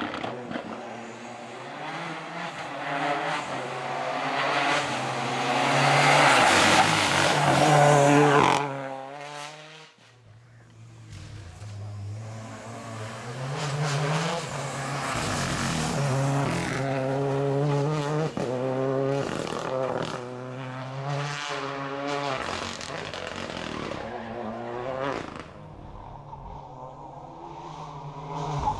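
Renault Clio R3T rally car with its turbocharged four-cylinder engine driven hard past on a stage, the engine note climbing and dropping through gear changes. It peaks and stops abruptly about eight seconds in, then a second run starts about ten seconds in and dies away near the end.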